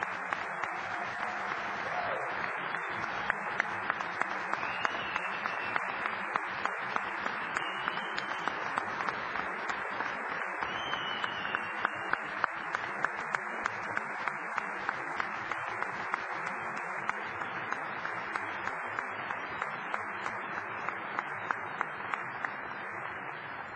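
Large audience applauding, a dense steady clapping that tails off near the end.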